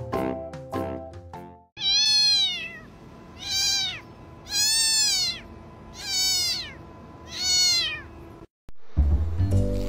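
Black kitten meowing five times, each call rising and then falling in pitch. A few plucked notes of background music play for the first second and a half.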